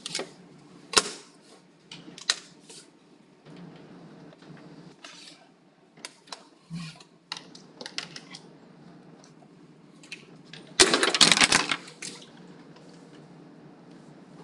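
A plastic ruler and a felt-tip marker handled on paper: scattered clicks and taps, then a burst of quick scratchy marker strokes lasting about a second late on.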